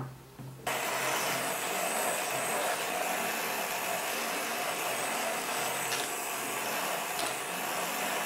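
Hand-held immersion (stick) blender switched on under a second in and running steadily, whisking eggs and milk in a plastic jug.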